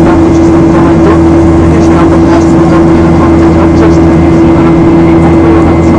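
Boeing 737-800's CFM56 turbofan engines heard inside the passenger cabin in flight: a loud, steady drone with an even humming tone running through it.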